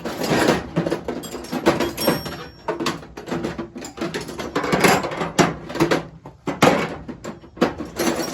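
Hand tools and metal parts clattering and knocking as someone rummages through them, with many quick irregular knocks and rattles.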